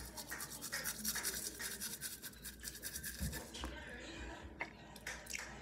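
Manual toothbrush scrubbing teeth: fast, scratchy back-and-forth brushing strokes, which stop about three and a half seconds in.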